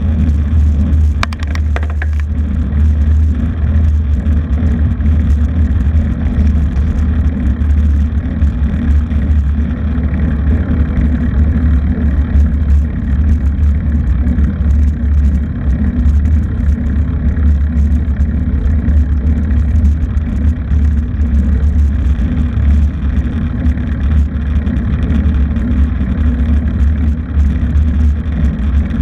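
Vehicle engine running steadily under way, with heavy low rumble and wind and road noise on the microphone. A few brief clicks come about a second in.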